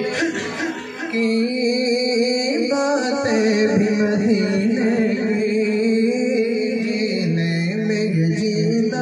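A man singing a naat, an Urdu devotional poem, into a microphone, drawing out long held notes with a slight waver; the pitch steps down about seven seconds in.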